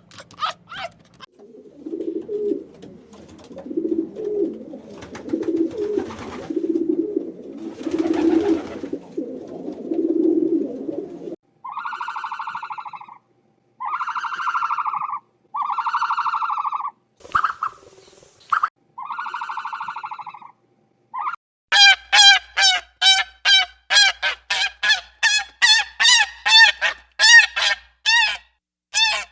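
A run of animal calls. First come low, pulsing grunt-like calls for about ten seconds, then five long, even, pitched calls about a second each, then from about 22 seconds on a quick run of short pitched calls, several a second.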